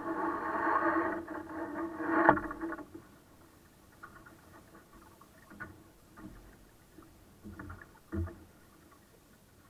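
Sailboat under way: a loud steady drone that stops abruptly about three seconds in, with a sharp knock just before it ends. Then a faint wash of water along the hull with a few scattered light knocks, the loudest near the end.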